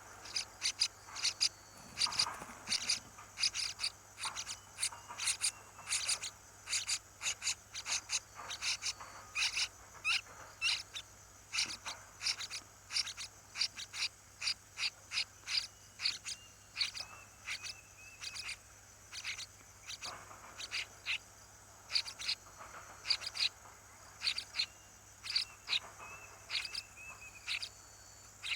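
Small birds chirping: a quick, uneven series of short high chirps, several a second, with a few brief held whistles, over a faint steady high hum.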